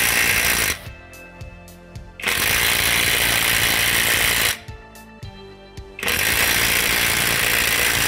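Einhell TE-CI 18 Li brushless 18 V cordless impact driver hammering on a car wheel bolt through a socket adapter, in three loud bursts: one stopping just under a second in, one of about two seconds, and one starting about six seconds in.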